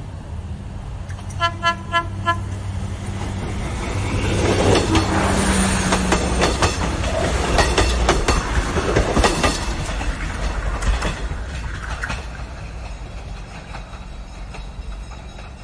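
A train horn gives four short toots, then a train passes with its wheels clattering over the rail joints, the sound swelling to a peak midway and fading away.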